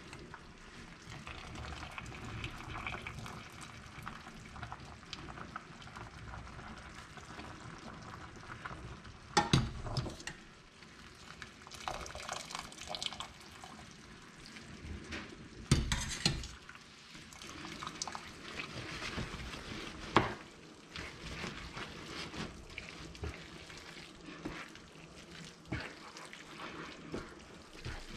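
Spaghetti lifted dripping out of a pot of boiling water with a metal pasta server and tossed with a wooden spoon in a pan of simmering cream sauce: wet squelching and stirring over bubbling water, with a few sharp knocks of the utensils against the pot and pan.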